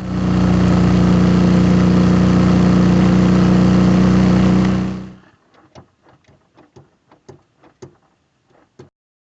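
Suzuki V-Strom 650's V-twin engine running at a steady pitch with wind noise, fading out about five seconds in. A run of faint, short ticks follows.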